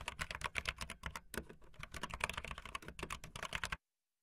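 Rapid typing on a computer keyboard, a quick run of key clicks that stops abruptly near the end.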